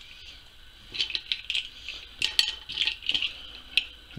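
Cooked cockle shells clicking and clinking against each other and the plate as half-shells are set on a dish of pasta: a run of light, quick clicks starting about a second in.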